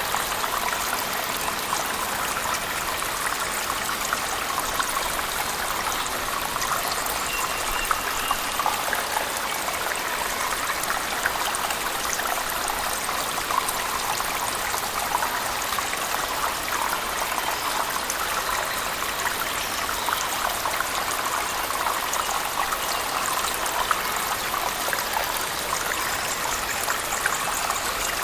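Waterfall splashing in a cave mixed with heavy rain: a steady, unbroken rush of falling water with a fine patter of drops.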